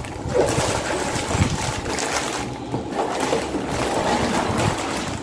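Rustling and scraping of cardboard box flaps and plastic bags of LEGO pieces being handled, an uneven hiss with a few small knocks.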